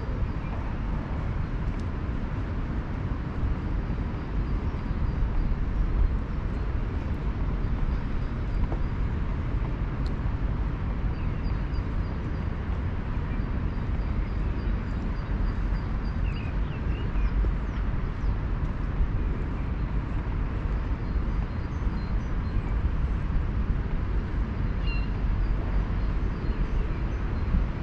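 Steady low rumble of city traffic in an urban park, with faint, short high bird chirps repeating over it.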